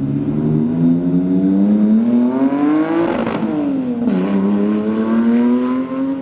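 Bisimoto-modified Porsche 996 Twin Turbo's twin-turbocharged flat-six accelerating hard: the revs climb steadily, drop over about a second at an upshift just past three seconds in, then climb again in the next gear.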